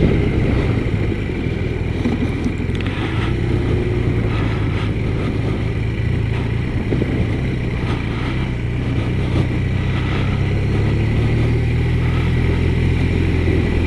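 BMW R1200RT's flat-twin engine running steadily under way, heard from the rider's position with wind and road noise.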